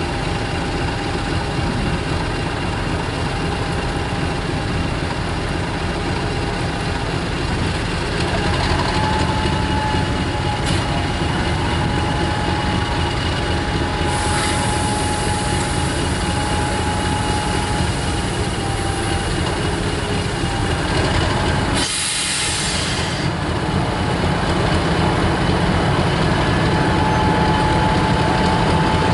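Class 50 diesel locomotive's English Electric 16-cylinder engine idling with a steady whine. It grows louder about 8 seconds in and again near the end as the locomotive starts to move off. A short hiss of air comes about halfway through, and a stronger one about three quarters of the way through.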